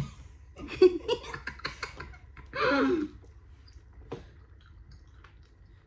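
Brief laughter and short voice sounds mixed with sharp clicks and taps, then a single longer laugh-like vocal sound, followed by a few faint clicks.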